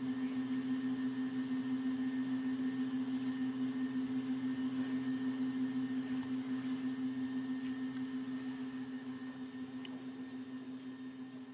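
A steady low hum that fades away toward the end.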